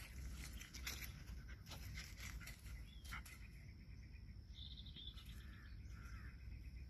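Faint rustling and scuffling of dogs moving in dry weeds, with a brief bird chirp about two-thirds of the way through.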